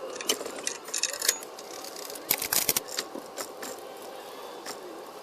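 Scattered sharp metallic clicks and clinks, like hand tools and hardware being handled during engine work, with a quick cluster of clicks about two and a half seconds in.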